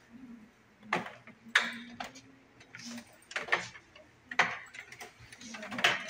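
Handling noise: about six sharp plastic clicks and knocks as a USB printer cable is plugged in and the scanner is shifted on the desk, with a faint low hum in the first half.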